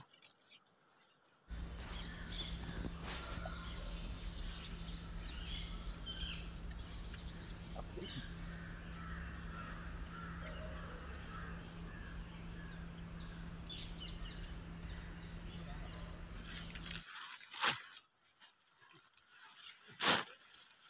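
Forest ambience: small birds chirping high over a steady low hum, starting abruptly a second or so in and dropping away about three seconds before the end. Near the end come a few short rustles of betel leaves being handled and stuffed into a cloth bag.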